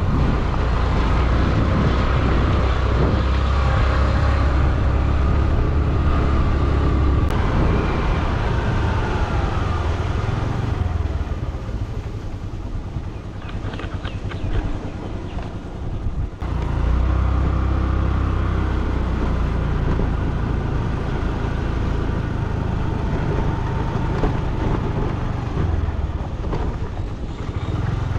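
Motorcycle engine running while riding. The note falls away after about eight seconds and goes quieter for a few seconds in the middle, then picks up again.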